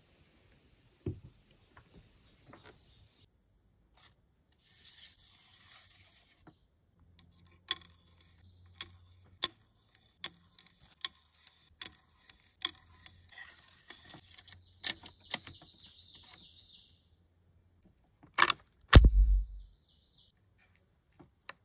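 A .22 rifle's bolt action being handled, giving a run of sharp metallic clicks with some rustling against a cloth sandbag. Near the end comes one loud shot.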